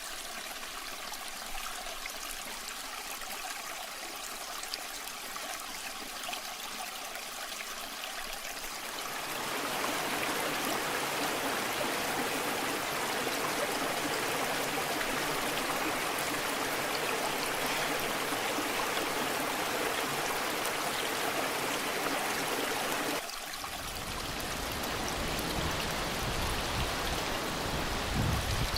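Water rushing and splashing down a waterfall, a steady even rush. About a third of the way in it grows louder and fuller; a little past two-thirds through the sound changes abruptly and a deep rumble joins the rush.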